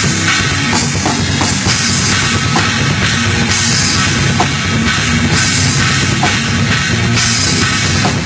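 Rock band playing at full volume: a drum kit with repeated cymbal crashes over bass drum, with electric guitars.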